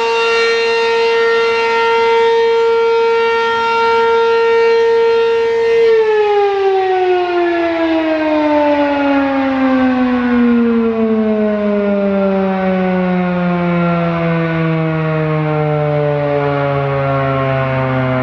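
Three-phase American Signal RM-127 mechanical outdoor warning siren sounding a steady, very loud tone. About six seconds in its pitch starts to fall and keeps sliding slowly down as the rotor winds down, ending the steady alert signal.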